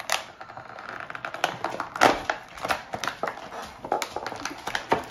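Hands opening toy figurine packaging: irregular crinkling and rustling with sharp clicks.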